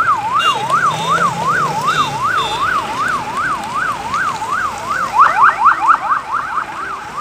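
Electronic siren wailing rapidly up and down, about two and a half cycles a second. Around five seconds in, a second siren with steeper rising sweeps overlaps it for about a second.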